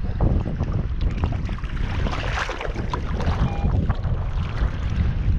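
Shallow river water sloshing and splashing around a wader's legs and gear, with wind rumbling on the microphone. A short beep sounds a little past halfway.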